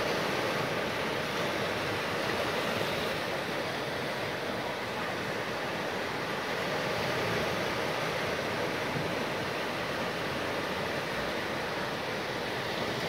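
Small sea waves breaking and washing up over sand and rocks at the shoreline: a steady, even wash of surf.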